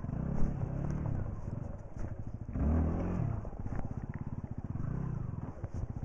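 Single-cylinder dual-sport motorcycle engine idling, with a brief rise and fall in revs around the middle and a sharp knock about half a second in.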